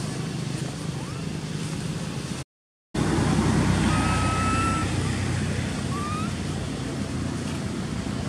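Steady low engine hum, like vehicles running or passing, with a few faint short whistled notes over it. The sound cuts out completely for about half a second a third of the way in.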